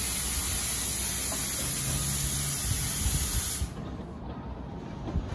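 Loud, steady hiss of compressed air venting from a stopped NJ Transit commuter train's air brake system, cutting off abruptly about three and a half seconds in, after which a lower rumble continues.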